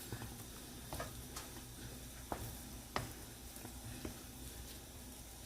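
A handful of light, separate clicks and taps over a faint steady hiss and hum, as a spill is wiped off a stovetop.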